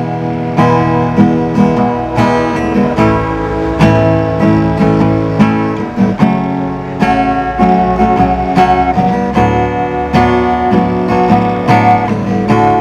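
Acoustic guitar strumming chords in a steady rhythm, a song's introduction before the singing comes in.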